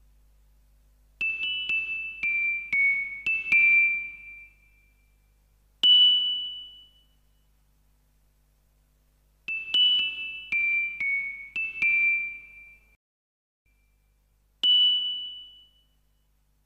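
Background music: a chiming, glockenspiel-like melody of struck notes. A quick run of falling notes is followed by a single higher note, and the phrase plays twice.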